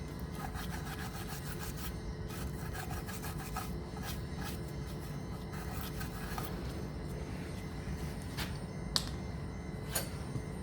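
Rapid back-and-forth scraping on metal brake parts, in runs of quick strokes, like cleaning the caliper carrier's pad seats before greasing, followed near the end by a few single scrapes and two sharp clicks.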